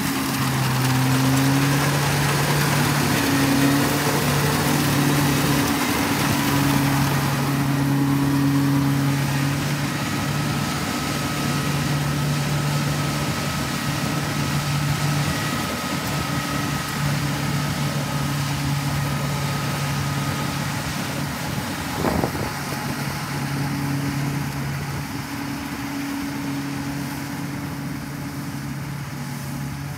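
Kubota rice combine harvester running steadily as it cuts and threshes rice: a constant engine drone under a dense rushing noise of the cutter and threshing drum. A single sharp knock about two-thirds of the way through.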